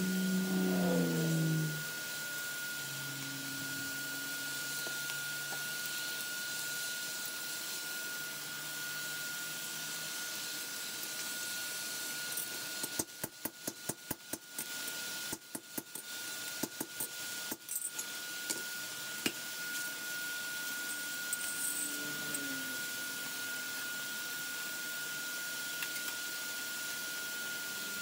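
Steel hammer striking a hand-held chisel set on a steel lawnmower blade on the anvil, about twenty quick metallic blows in three bursts about halfway through, then one more. Under it are a steady high whine and hiss.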